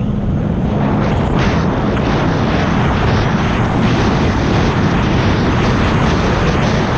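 2021 Sea-Doo RXP-X's supercharged Rotax 1630 three-cylinder engine and jet pump running hard at racing speed, heard from on board the ski. Steady water and wind rush goes with it, with a few short knocks.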